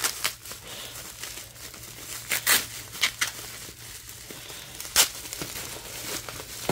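Bubble wrap crinkling as it is unwrapped by hand, in a scatter of sharp crackles, the loudest about five seconds in.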